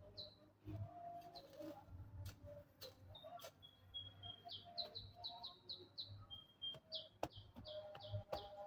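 Small birds chirping: short, high, downward chirps, some in quick runs of five or six, with a few sharp clicks between.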